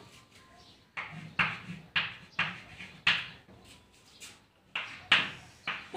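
Chalk writing on a blackboard: a run of short, sharp scratching and tapping strokes with brief quiet gaps between them.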